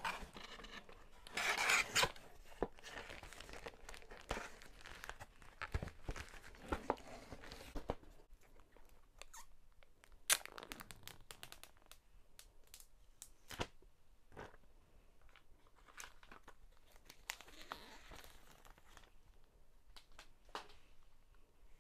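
Cardboard and plastic packaging rustling and tearing as a phone box is pulled from its shipping carton and handled. The loudest rustle comes about a second and a half in, followed by scattered small crinkles and clicks, with one sharp click about ten seconds in.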